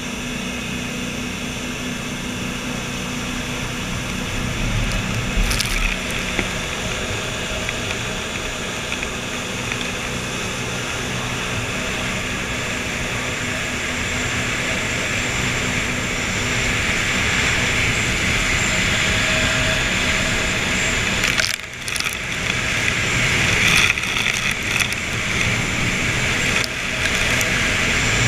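Thirty-foot jet boat running at speed: a steady engine and water-jet drone under loud rushing wind and spray. The noise dips briefly about three-quarters of the way through.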